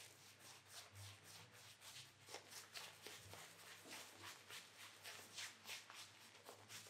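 Shaving brush working wet shaving-cream lather over a bearded face: a faint, quick run of soft brushing strokes, about four or five a second.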